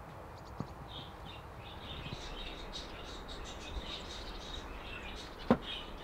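Budgerigars chirping and chattering in many short, high chirps. A single sharp knock near the end.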